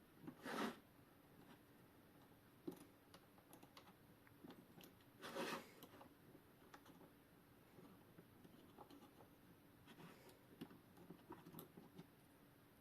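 Faint, scattered small clicks and scrapes of hands working the parts of a clock movement, with two brief louder rustling scrapes, about half a second in and about five seconds in.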